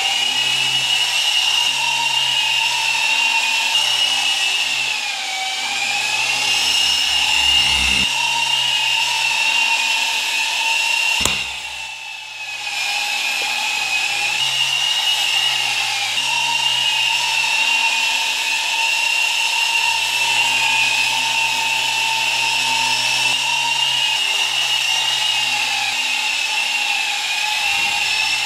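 Small electric motors and coaxial rotors of a homemade RC helicopter whining steadily in flight, the pitch sagging briefly a few times. A sharp click a little before halfway is followed by about a second of weaker sound.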